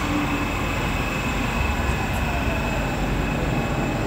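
Steady hum of a metro train standing at the platform with its doors open, with a thin high whine held steady over it.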